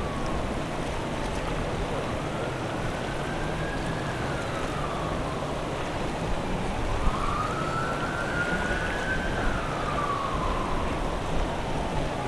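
Emergency vehicle siren on a slow wail, its pitch rising and falling in long sweeps, about three times, over a steady rush of wind and water noise.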